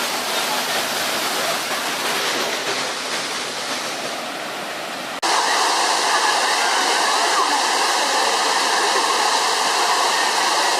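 Waterfall water rushing, a steady hiss of falling water; about five seconds in it cuts abruptly to a louder stretch of rushing water.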